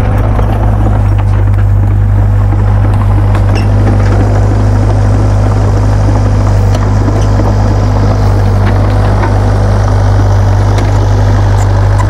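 Doosan mini excavator's diesel engine running steadily as it digs into an earth bank, a loud low drone that holds the same pitch throughout, with a few faint clicks scattered over it.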